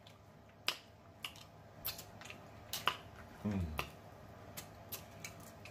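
Close-up eating sounds from snow crab legs: scattered sharp clicks and cracks of shell and wet mouth smacks as meat is picked and sucked from the legs, with a short low hum about three and a half seconds in.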